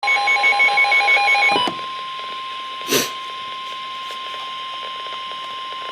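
Emergency alert warning tone: one steady high tone, announcing a flood warning broadcast. Rapid pulsing beeps sound over it for the first second and a half, and a single click comes about three seconds in.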